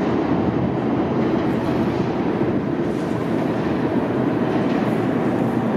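New York City subway C train pulling out of an underground station, its running noise steady and echoing off the station walls as it heads into the tunnel.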